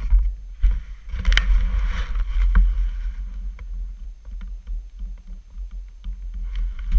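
An ATV engine running low and steady under heavy wind rumble on the microphone. There are scattered knocks and rubbing as the camera mounted on the ATV is turned by hand.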